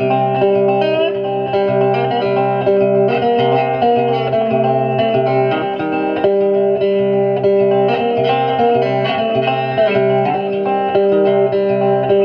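Background music: an electric guitar picking a repeating melody over steady sustained notes.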